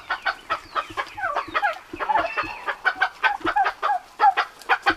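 Poultry clucking, turkeys with a bantam hen among them: a rapid, unbroken run of short calls, several a second, many sliding down in pitch.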